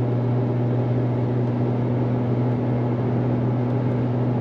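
Steady in-cabin drone of a Mitsubishi Lancer Evolution X with its turbocharged 4B11 four-cylinder cruising at highway speed: a constant low engine hum under road and wind noise.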